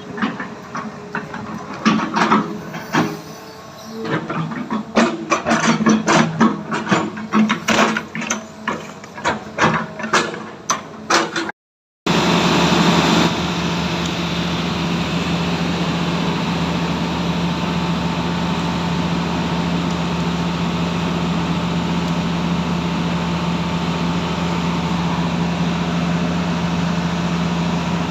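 Heavy diesel earthmoving machine at work: irregular clanking and knocking over the engine for the first half, then, after a break, the diesel engine running steadily and loudly.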